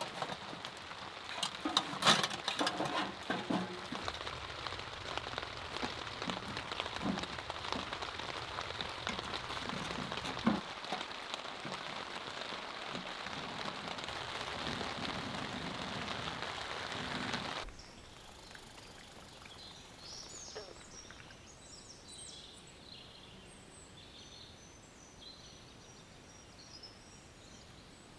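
Steady heavy rain falling, with scattered sharp drop hits on a surface, which stops abruptly about two-thirds of the way through. The rain gives way to quieter background with small birds chirping now and then.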